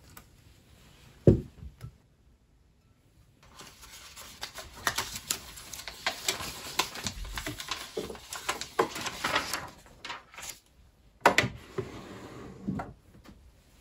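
Papers rustling and shuffling as a hand rummages through an open wooden desk drawer, with small clicks throughout. Sharp wooden knocks from the drawer sound near the end, and a single sharp knock comes about a second in.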